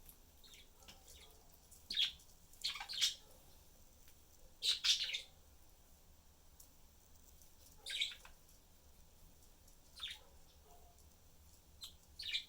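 Pet budgerigars chirping: a few short, sharp chirps at irregular intervals, with a couple of clustered double chirps around two to five seconds in.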